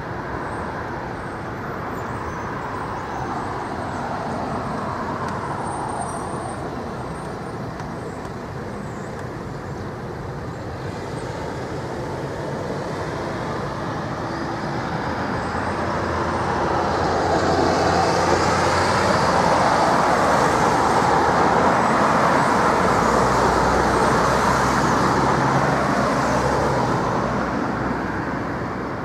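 Jet airliner engines rumbling without a break, first the Airbus A340-300 climbing away under go-around power. The sound swells to its loudest about two-thirds of the way through as an aircraft passes close, with a slowly sweeping hiss, then eases off near the end.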